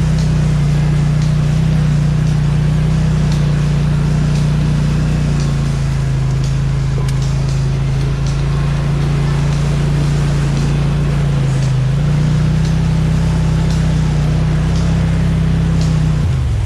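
ATV or UTV engine running at a steady pace while riding. Its note dips slightly about five seconds in, rises back about twelve seconds in, and shifts again near the end.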